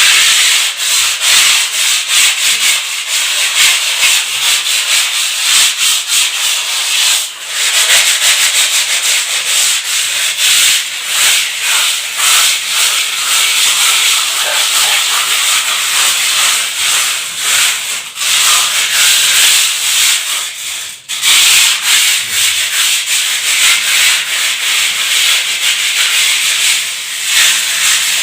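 A rough, dusty wall being scrubbed by hand to smooth it: continuous, loud scraping, with brief pauses about 7 seconds in and again about 21 seconds in.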